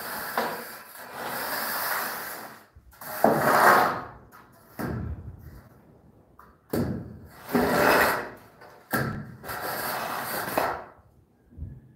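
Long straightedge scraping across a sand-and-cement screed bed as it is dragged to level the floor, in a series of gritty strokes of a second or two each.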